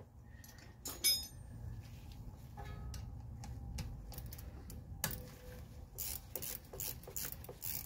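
Hand tools working a brake-hose banjo bolt into a brake caliper: a sharp metallic clink about a second in, then a run of short scraping clicks over the last three seconds.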